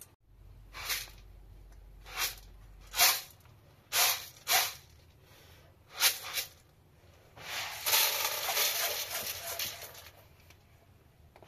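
Dried red beans rattling in a metal pan, shaken in several short bursts, then a longer rush of beans pouring from the pan into a pot near the end.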